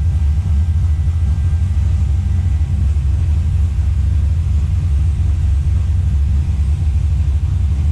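Turbocharged car engine idling steadily as it warms up, a deep even rumble with no revving.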